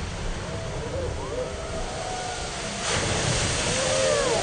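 Rushing wash of water spray from a log flume boat's splashdown, growing louder about three seconds in as the wave sweeps over the onlookers. People shriek and yell through it.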